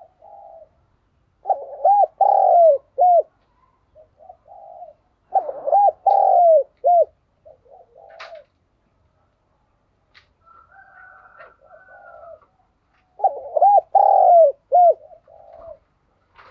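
Spotted dove cooing: three loud phrases of four or five rising-and-falling notes each, about four seconds apart, with quieter short coos in between. It is the song of a caged decoy dove, of the kind played to set other spotted doves cooing.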